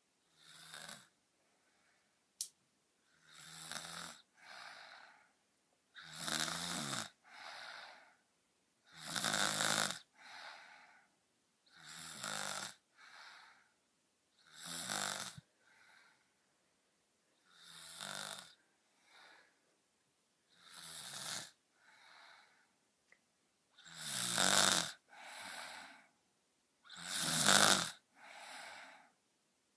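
A girl snoring, with a loud snore about every three seconds, each followed by a softer one. There is a single brief click about two seconds in.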